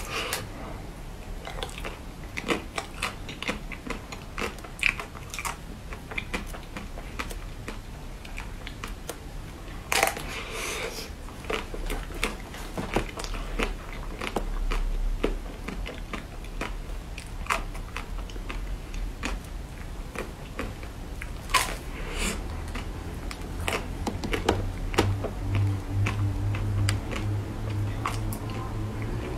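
Close-up crunchy biting and chewing of a coated sweet, with many sharp crunches and stronger bursts of crunching about ten seconds in and again after about twenty seconds.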